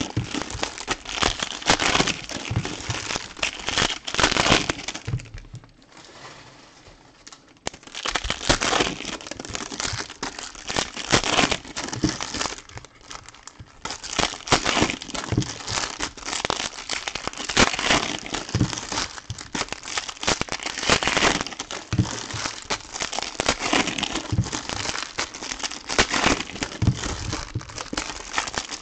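Foil trading-card pack wrappers being torn open and crinkled by hand, with irregular crackling and clicks. It goes quieter for a couple of seconds about six seconds in and again briefly near thirteen seconds.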